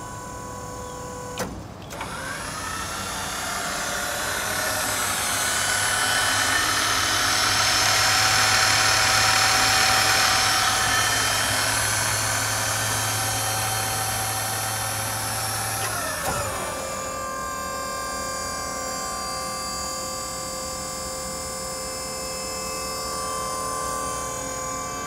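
Autocrane 5005EH electric-hydraulic crane's pump motor clicking on about a second and a half in, spinning up and running loud and steady for about fourteen seconds as the crane is worked, then winding down. A steadier mechanical hum with a whine runs underneath before and after.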